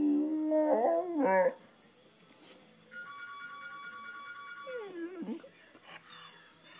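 Blue pit bull puppy howling: a loud howl that climbs in pitch and breaks off about a second and a half in. A phone ringtone then rings for about two seconds, followed by a short wavering whine-howl from the puppy.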